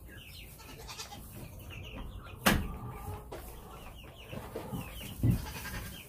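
Baby chicks peeping in quick, continuous chirps, with a sharp knock about two and a half seconds in and a dull thump near the end.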